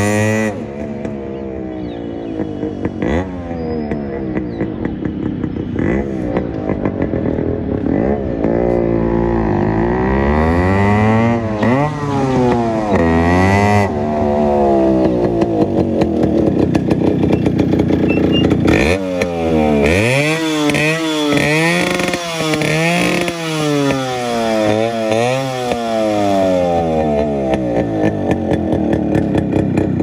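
Yamaha RX two-stroke single-cylinder motorcycle with twin exhausts, ridden and revved hard. Its engine note rises and falls with the throttle and gear changes, then from about two-thirds of the way in turns to quick blips, rising and dropping about once a second. Full loud.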